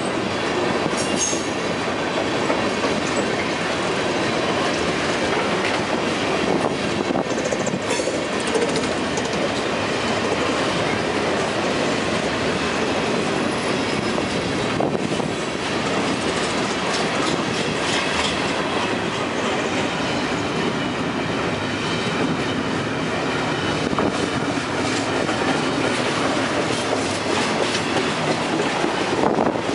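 Freight train's cars rolling steadily past, with continuous wheel-on-rail noise and the clatter of wheels over the rails.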